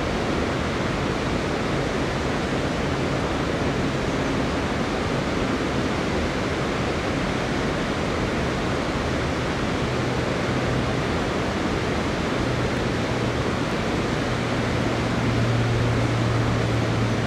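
Steady rushing of water pouring over the lip of Ladybower Reservoir's bellmouth overflow, the 'plughole', and down its shaft, with the reservoir full and overflowing. A low steady hum comes in over the last few seconds.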